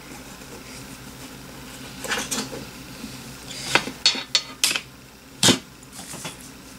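Craft supplies being handled and set down on a hard surface: a series of sharp clicks and knocks, the loudest about five and a half seconds in.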